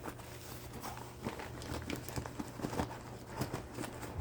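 Handling noise as small items are taken out of a bag and handled: irregular light clicks and taps with a little rustling.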